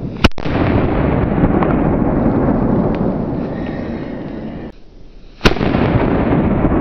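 Two sharp bangs from MIG Kanonenschlag salute firecrackers (German-made by Sauer), one just after the start and one about five seconds later. Each is followed by a loud, slowly fading rumble.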